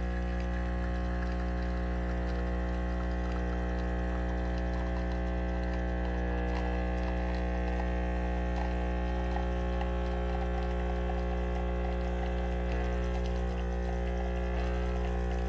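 Vibratory pump of a DeLonghi EC155 espresso machine running with a steady buzzing hum while espresso pours from the portafilter.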